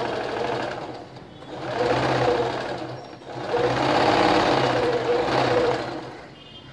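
Electric domestic sewing machine stitching around a curved kurti neckline, running in three stretches of one to two and a half seconds with short pauses between, and stopping about six seconds in.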